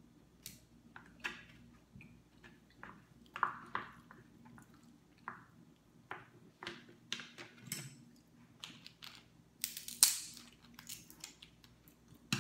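A metal seafood fork clicking and scraping against Dungeness crab shell as the meat is picked out, with irregular sharp cracks and crunches of shell; the loudest crack comes about ten seconds in.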